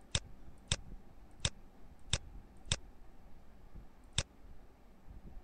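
Computer mouse button clicking, six sharp single clicks at uneven intervals while a software scene is being chosen.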